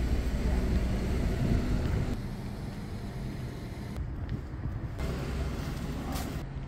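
City street ambience with passing road traffic. A low vehicle rumble fades over the first two seconds, and the background jumps abruptly several times.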